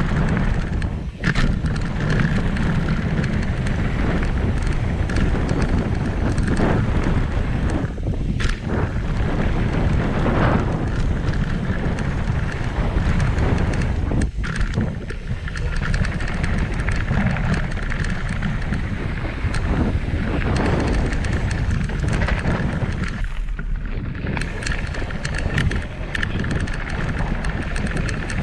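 Mountain bike descending a dirt jump trail, heard from a camera on the bike: heavy wind noise on the microphone over tyres rolling on loose dirt and gravel and the bike rattling. A few sharp knocks stand out.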